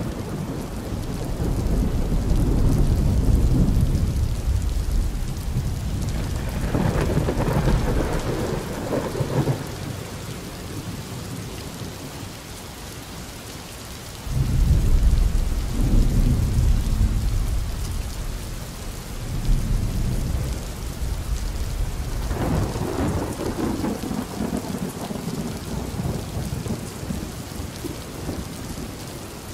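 Thunderstorm: steady rain with rolling thunder, deep rumbles swelling and fading several times.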